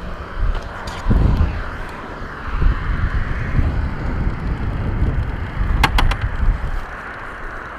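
Wind buffeting the microphone over the rumble of a Suzuki DR-Z400SM supermoto rolling as it is push-started, its engine not catching. A quick run of sharp clicks comes about six seconds in.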